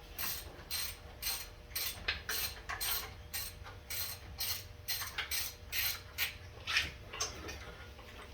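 Hand socket ratchet being swung back and forth on a bolt, its pawl clicking about three times a second, thinning out near the end.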